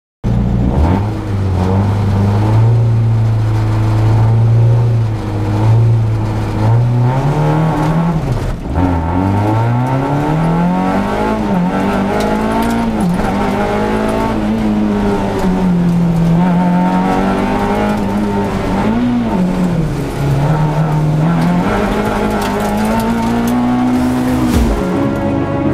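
Peugeot 206 rally car's engine at full stage pace, heard from inside the cabin. It holds steady revs for the first several seconds, then rises and drops again and again as the car is driven through the bends, with a sharp fall about eight seconds in.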